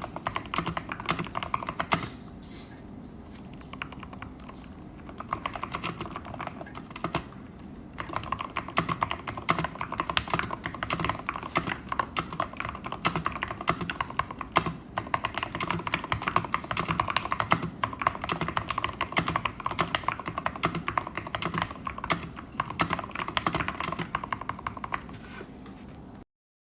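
Typing on a mechanical keyboard fitted with Gateron Milky Yellow Pro linear switches: a run of keystroke clacks that thins out between about two and eight seconds in, then turns fast and steady until it stops just before the end.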